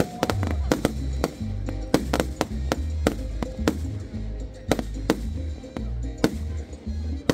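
Fireworks going off in irregular sharp bangs and cracks, a few a second, over loud music with a heavy bass line.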